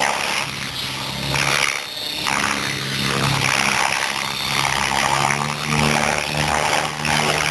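Align T-Rex 700E electric RC helicopter in flight: a steady rotor buzz with a whine from its electric motor. The buzz dips briefly about two seconds in, then returns.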